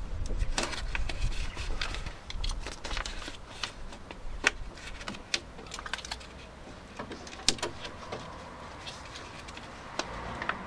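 Thin plastic weather membrane being peeled off a car's inner door panel and cut free around its clips with a knife, making irregular crackles and sharp clicks.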